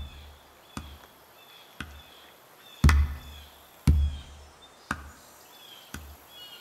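Background music with a slow, steady drum beat of about one hit a second, deep booming hits alternating in pairs with lighter ones, over short high bird chirps.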